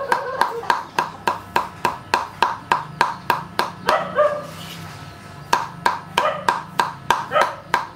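Steel cleaver chopping minced fish on a chopping board, about three even strikes a second, with a pause of about a second midway. A few short barks, like a dog's, come between the chops.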